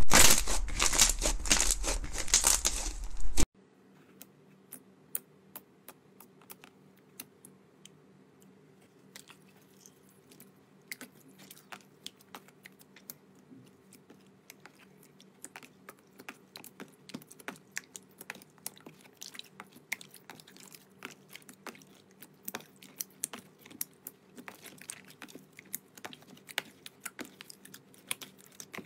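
Thick orange slime squeezed between the fingers with dense, loud crackling that cuts off suddenly. Then a clear pink jelly slime is pressed and stretched by hand in a plastic tub, giving quiet sticky clicks and pops that grow more frequent as it goes on.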